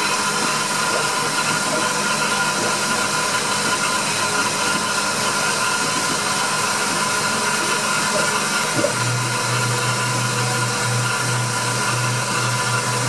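Denford Novamill benchtop CNC milling machine running: a steady mechanical whine with a hiss. A low hum joins near the end.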